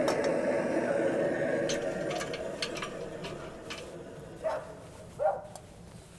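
A dog barks twice near the end, short sharp barks. Before that there are light metallic clinks of a kitchen pot and spoon, over a steady background murmur that fades away in the first few seconds.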